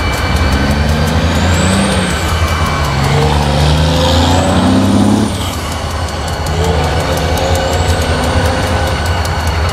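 Diesel locomotive engine running as the unit moves slowly. A low steady rumble lies under an engine note that rises, drops back about five seconds in, then climbs again.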